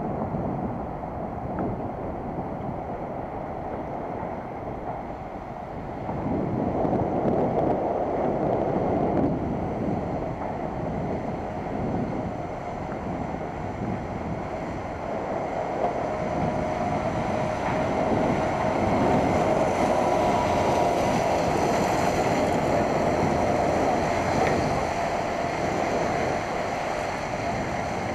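Wind rushing and buffeting over the microphone of a camera mounted on a moving bicycle, with a rumble of tyres on pavement. It swells in gusts, and a faint steady hum joins it about halfway through.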